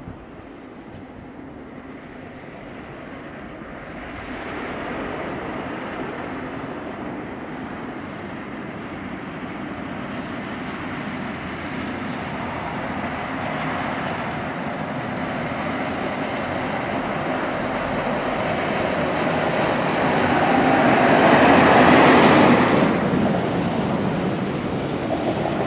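Snow plow trucks with front blades clearing a snowy highway: engines and blades on the road make a steady rushing noise. The noise swells as the trucks come closer, is loudest a few seconds before the end as one passes near, then drops sharply.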